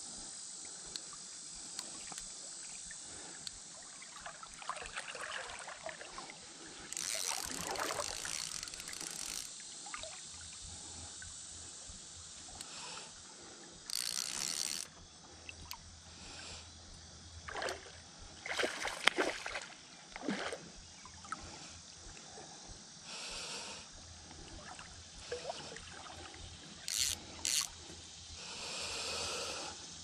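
Creek water running steadily, with several short bursts of splashing as a hooked walleye is brought in through shallow water.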